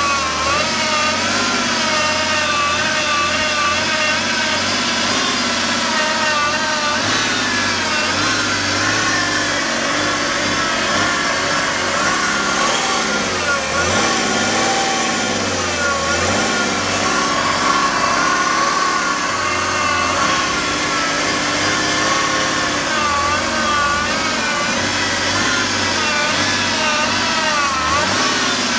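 BMW E60 535d's diesel engine running, with a steady whine around the power steering pump whose pitch wavers up and down without stopping: a strange noise that the owner places at the steering pump.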